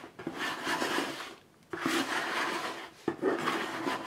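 A flat metal dough scraper (rapadura) rasping against the inside of a large kneading bowl in three long strokes, scraping off the leftover bread dough after kneading.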